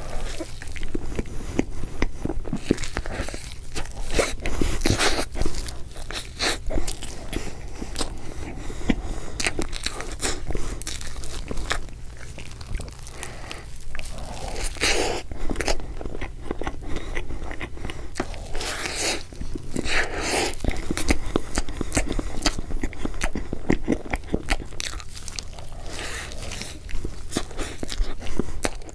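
Close-miked ASMR eating of cream layer cake: big bites and chewing, with frequent sharp mouth clicks and smacks.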